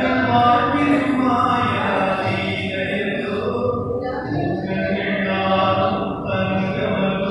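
Devotional vocal music: voices chanting in long, held notes with slow changes of pitch.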